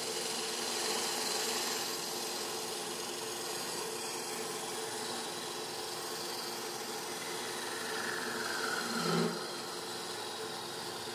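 Wood lathe running while a thin parting tool cuts into a spinning soft white maple box, a steady scraping hiss over the lathe's hum as the box is parted off from the waste. About eight to nine seconds in, a brief falling whine rises above the cut.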